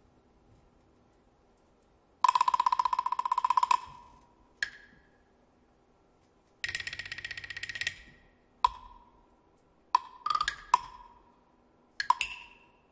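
Tuned hand percussion, a rack of rounded wooden blocks and small gongs, struck with sticks. There are two fast rolls of about a second and a half each, then a scatter of single and paired strokes at different pitches, each ringing only briefly.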